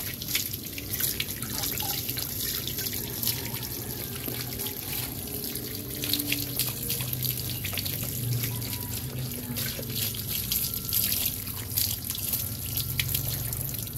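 Water from a garden hose running and splashing onto a soapy dog's coat and the concrete as the dog is rinsed, with water dripping off the fur.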